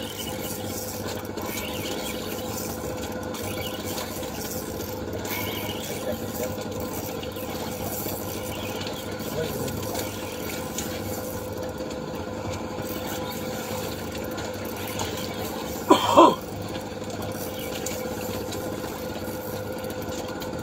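Spinning reel being cranked steadily against a bent rod as a fish is reeled in, over a constant motor hum. A brief loud voice cuts in about sixteen seconds in.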